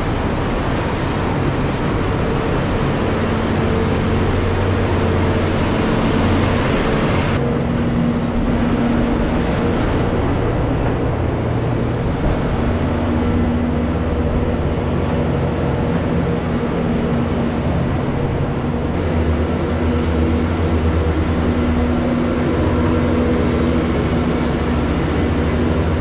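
Skid-steer loader engine running steadily at working revs while it pushes a rubber-tire scraper through the manure alley of a barn.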